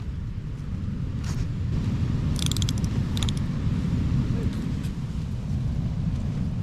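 Storm wind buffeting the tent, a steady, uneven low rumble. Over it, a single click and then two short bursts of rapid rattling clicks in the middle, from handling of cooking gear.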